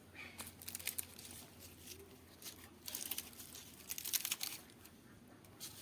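Faint crinkling and crackling in short spells from hands handling ash-roasted cactus leaves, quieter near the end.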